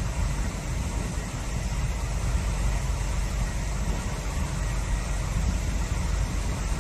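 Steady rushing of a swollen, muddy stream pouring over shallow rapids, with a deep rumble beneath.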